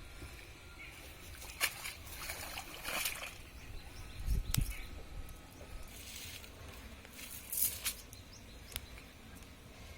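Water sloshing and splashing in several short bursts over outdoor background noise, with a dull thump about four and a half seconds in and a few light clicks.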